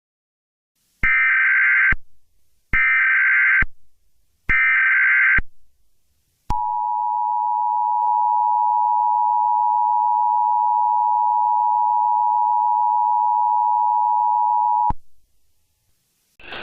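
Emergency Alert System tones: three one-second bursts of SAME header data, about a second apart. Then the two-tone EAS attention signal (853 and 960 Hz sounded together) comes in, holds steady for about eight seconds, and cuts off.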